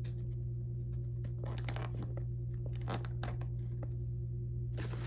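Small plastic action-figure heads being handled and set down on a tabletop: scattered light clicks and taps over a steady low hum. Near the end a rustle of crinkling plastic packaging starts.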